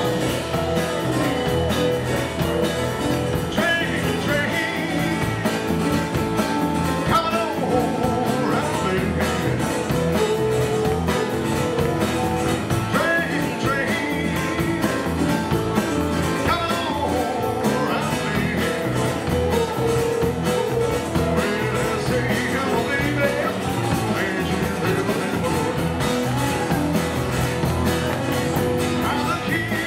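Live rock-and-roll band playing at a steady, driving beat: a male lead singer over two acoustic guitars and drums, with female backing singers joining in.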